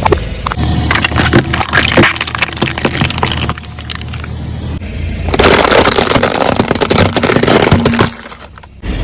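Car tyre rolling over and crushing brittle objects: a rapid run of sharp cracks and crunches that eases off about three and a half seconds in, then a dense, loud burst of crunching from about five seconds in that drops away shortly before the end.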